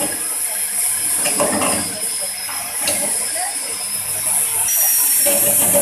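Coconut shell peeling machine running with a steady high hiss, its spinning toothed blade scraping the shell off a coconut pressed against it.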